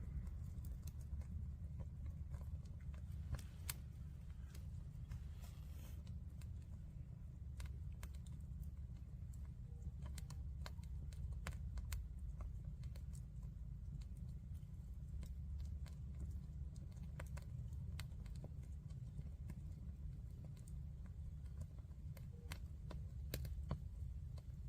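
Wood bonfire crackling: irregular sharp pops and snaps over a steady low rumble.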